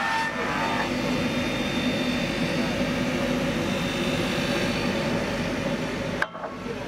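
Woodworking machine running with a steady mechanical noise and hum, which cuts off suddenly with a click near the end.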